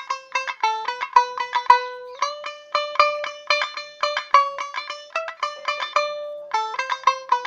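Tumbi, the Punjabi one-string plucked lute, played solo: a fast, even run of bright plucked notes. The pitch steps up a little about two seconds in and drops back about a second before the end.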